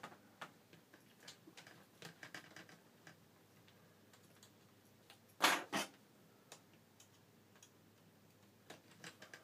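Plastic screen bezel of a Toshiba Satellite P55-A5200 laptop being pried off with a small screwdriver: scattered light clicks as its clips release, with a louder pair of snaps about five and a half seconds in.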